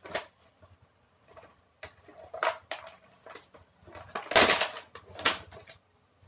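Cardboard toy box with a plastic window being handled and opened by hand: irregular rustling and scraping, loudest about four and a half seconds in.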